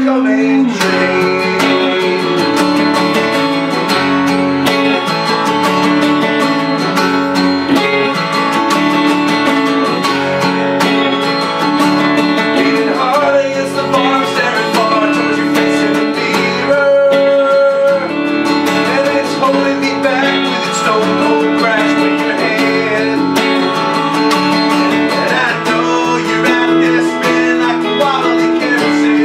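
Live guitar duo: an acoustic guitar strummed while a Telecaster-style electric guitar plays along, a song at a steady level.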